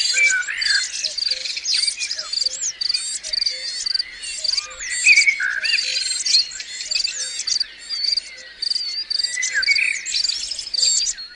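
A nature soundscape of many birds chirping and whistling over a steady high insect trill, like crickets, with a soft low note repeating about twice a second.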